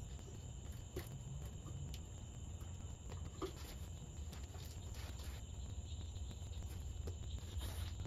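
Quiet background: a low steady rumble with faint insect chirping, and a few light knocks and steps as someone moves about the golf cart.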